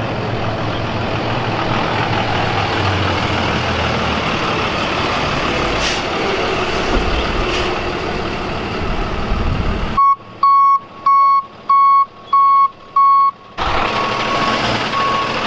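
Medium-duty flatbed rollback truck's diesel engine running as it drives up, then its reversing alarm beeping about two times a second from about two-thirds of the way in.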